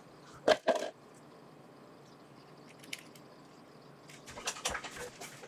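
Hands handling a tape-wrapped USB dimmer lead on a workbench: two short knocks about half a second in, then a run of small clicks and rustles near the end.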